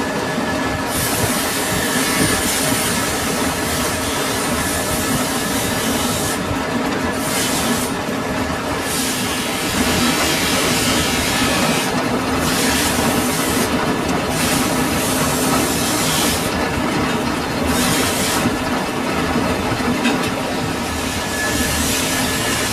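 Metal lathe running with a steady hum while the cutting tool turns the steel roller, a harsh hiss that breaks off briefly several times as the cut pauses.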